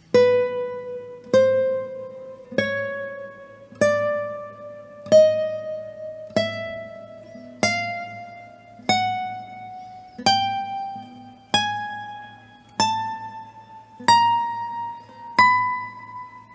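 1998 Paco Santiago Marín classical guitar played one note at a time. Thirteen single notes, about one every second and a quarter, climb step by step through about an octave, each left to ring and die away.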